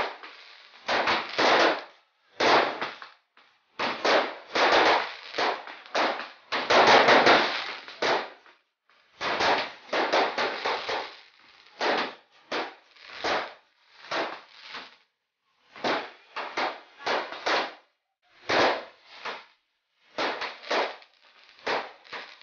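Fireworks going off: clusters of rapid crackling pops, one burst after another with short quiet gaps between.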